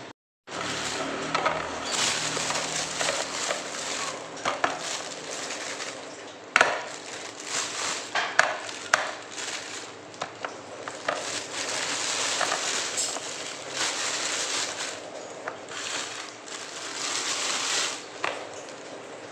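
Knife cutting a mango, with scraping and many sharp taps of the blade.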